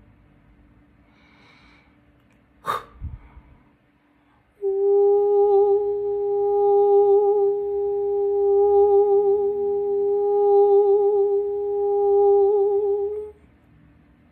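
A woman's voice holds one long hummed note with a slight wavering vibrato for about eight seconds, starting about halfway in. Before it, a single sharp knock.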